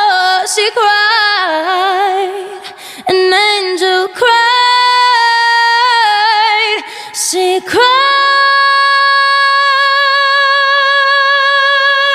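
Layered a cappella female vocals with no instruments: wordless runs in close harmony, then a long held chord of several voices from about eight seconds in.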